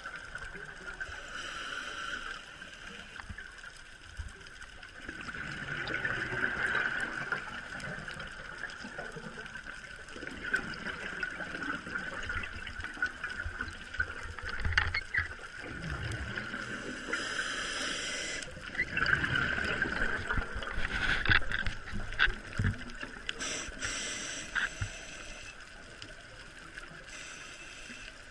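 Underwater sound of scuba breathing through a regulator: muffled exhaled bubbles swell up a few times, over a steady faint hum.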